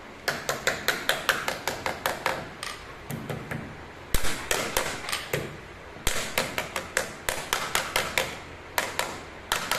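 Steel hammer tapping lightly on a laminate floor edge-trim strip, about six quick taps a second in runs with short pauses, the strongest tap about four seconds in. The taps seat a freshly glued trim strip against the floor.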